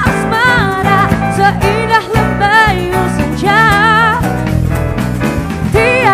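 Music: a slow love-song melody with vibrato, in phrases, over a steady accompaniment.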